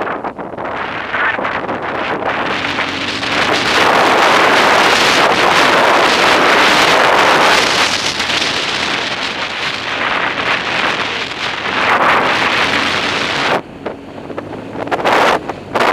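Wind buffeting the microphone of a motorcycle-mounted action camera at riding speed on a dirt road, with the BMW R1200GS running underneath. The rush is loudest from about four to eight seconds in and drops off briefly near the end.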